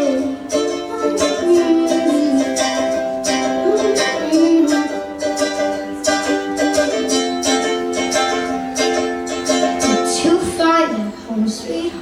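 Ukulele strummed in a steady rhythm, playing the song's chords on after the last sung line, with a voice singing over it at times without clear words.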